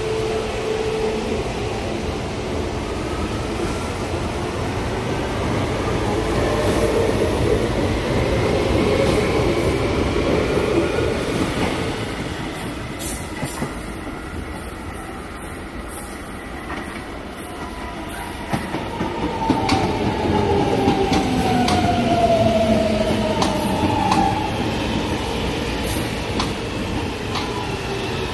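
Electric metro trains at a station: a train pulls out, its traction motors whining under the rumble of the wheels. Later a second train runs in alongside the platform, its motor whine gliding down in pitch as it slows, with a run of sharp clicks from the wheels over rail joints.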